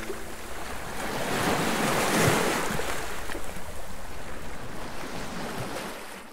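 Ocean surf: waves washing onto a shore, one swelling louder about two seconds in, fading out at the end.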